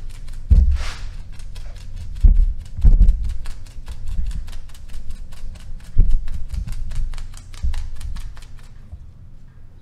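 Brush dabbing tinted epoxy into fiberglass mat to wet it out: a quick, even run of light taps, about five a second, that stops near the end. A few louder low thumps fall in between.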